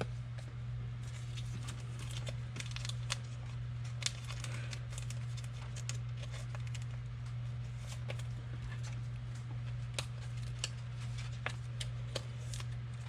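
Trading cards being handled and flipped through: scattered light clicks and rustles, over a steady low hum.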